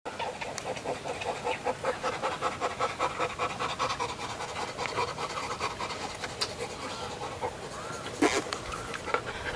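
A chimpanzee panting rapidly in close contact, about four breathy pants a second: the excited panting chimpanzees give in greeting. There is a brief, sharper sound near the end.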